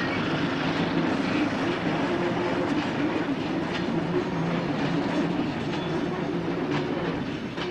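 Goods train of tank wagons rolling past: a steady rumble of wheels on rail with a low hum, broken by occasional clicks from the wheels. It eases slightly near the end.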